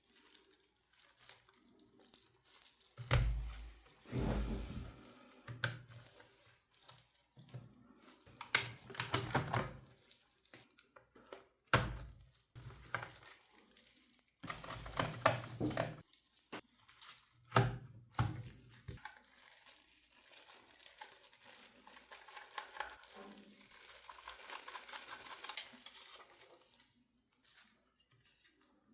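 Hands working on a Dell Inspiron 15 3000-series laptop during a hard-drive-to-SSD swap: irregular knocks, clicks and clatter of small hard parts and tools, with stretches of scraping and rustling.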